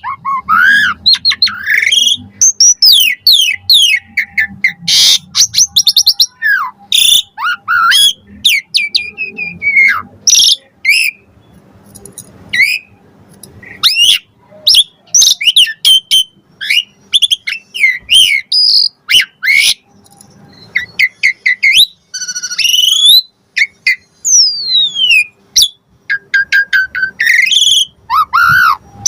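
Javan pied starling (jalak suren) singing a fast, varied song of rising and falling whistles, chirps and sharp clicks, full of borrowed phrases.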